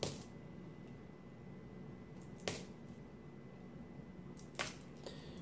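Nickels clinking as they are handled and set down on a pile of coins: three short metallic clicks, about two seconds apart.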